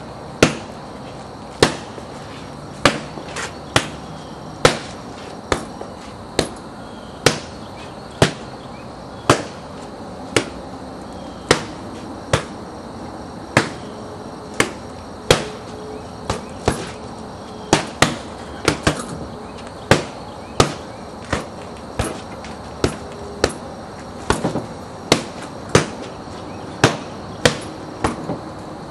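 Palm and fist strikes on hand-conditioning bags: sharp slaps at an uneven pace, more than one a second, some landing in quick pairs.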